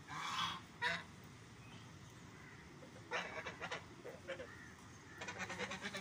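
Domestic poultry giving harsh, honking calls in three bouts: one right at the start, a stuttering run about three seconds in, and another near the end.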